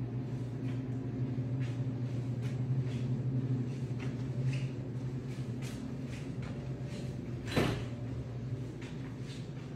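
A steady low hum runs throughout, with faint scattered clicks and knocks. One sharper knock comes about three-quarters of the way through, like a cupboard or door being moved.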